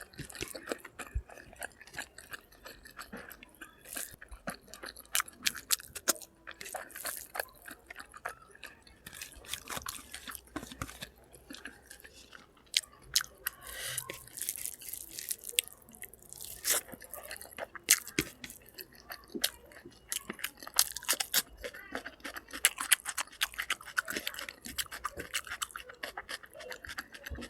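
A person chewing food close to the microphone, with dense, irregular wet clicks and crunches.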